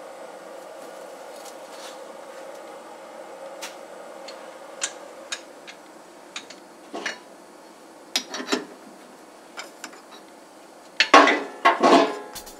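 Metal lathe running while its tool cuts an acetal plastic ring, a steady hum that fades after four or five seconds. Then scattered clicks and knocks, with a loud clatter near the end as the ring is worked off the chuck jaws.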